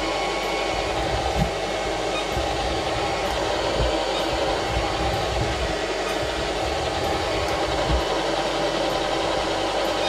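SilverCrest SSR 3000 A1 robot vacuum cleaner running, a steady whir of its suction fan and spinning side brushes as it is driven over scattered small particles, with a few faint low knocks.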